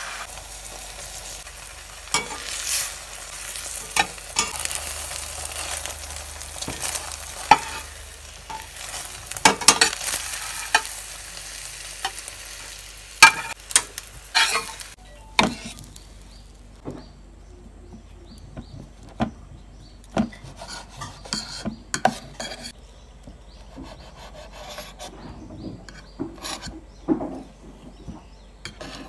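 Rolled omelette sizzling in oil in a nonstick frying pan, with the metal spatula scraping and tapping against the pan; the sizzle stops about halfway through. Then come scattered knife knocks on a wooden cutting board as the omelette is sliced.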